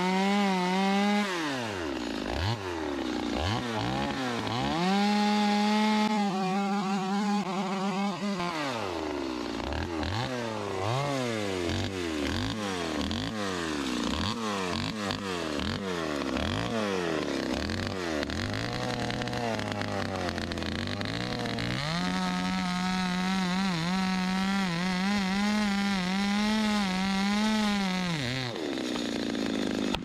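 Two-stroke chainsaw cutting into a tree trunk in a felling cut. It holds at full throttle for stretches and repeatedly revs up and drops back in between, running low for a few seconds about two-thirds of the way through. It goes back to full throttle and then drops back near the end.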